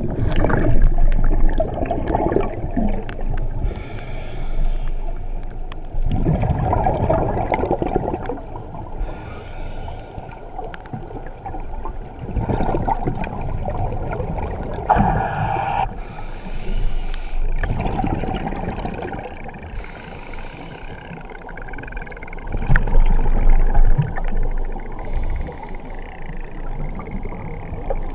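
Scuba diver breathing on a regulator underwater: a short hiss on each inhale followed by a louder rumble of exhaled bubbles, in a slow cycle of about five breaths, muffled through the camera's waterproof housing.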